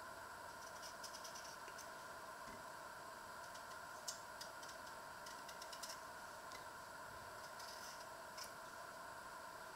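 Small kitchen knife peeling a raw potato: faint, crisp scraping clicks as the blade cuts through the skin, coming in irregular strokes, the sharpest about four seconds in, over a steady background hum.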